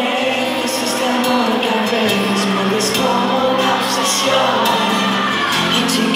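A live pop band playing a ballad: male voices singing over acoustic guitar and bass, with the sound of the hall and the audience around it.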